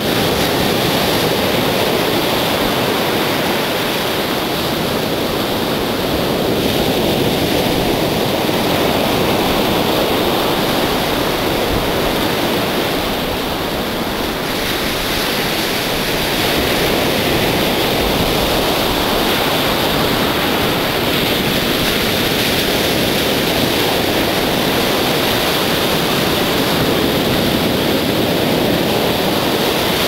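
Sea waves breaking on a sandy beach: a steady rush of surf that swells and eases a little over several seconds.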